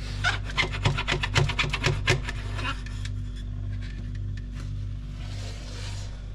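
Quick rubbing, scraping strokes, about five a second, that stop after about two and a half seconds; a steady low hum runs underneath throughout.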